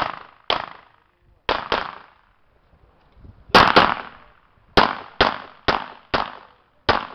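Glock pistol firing a practical-shooting string of about eleven shots, most about half a second apart with a few quicker pairs, each shot trailing a short echo. There is a gap of nearly two seconds in the middle as the shooter moves to a new position, then a fast pair and a steady run of shots.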